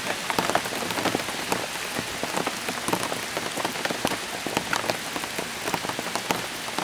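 Steady rain falling, with many irregular drop ticks close by over an even hiss.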